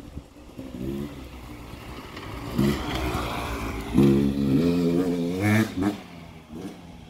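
Beta 300 RR two-stroke enduro motorcycle riding past, its engine pitch rising and falling with the throttle. It grows louder as it comes close, is loudest about four seconds in, and drops away after about six seconds.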